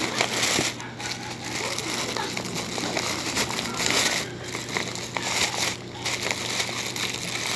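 Plastic bag crinkling and rustling continuously, with small crackles, as hands open it and rummage among the packaged goods inside.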